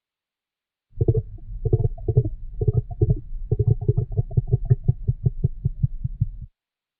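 Stomach growling: a low gurgling rumble that starts about a second in and breaks into quick pulses, about five a second, before cutting off suddenly.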